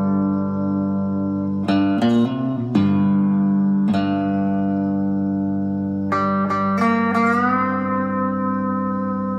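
Electric cigar box guitar played slide style: picked notes ring over a sustained low drone string, with a quick run of plucks about two seconds in and a smooth upward slide into a new note about seven seconds in.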